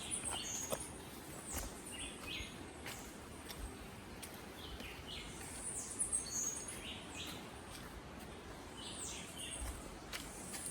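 Birds chirping in the forest: many short, high calls and quick downward-sweeping whistles, repeating every second or so. A few faint clicks are heard along with them.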